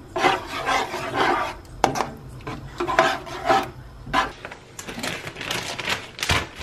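Spatula scraping and stirring through thick creamy carbonara sauce in a non-stick frying pan, in repeated strokes about once a second, with one sharp knock near the end.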